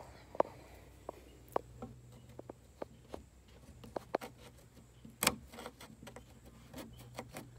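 A pointed metal tool scraping and picking leftover paint out of the inside corners of a wooden dresser panel: irregular sharp scratches and clicks, with a louder one about half a second in and another a little after five seconds.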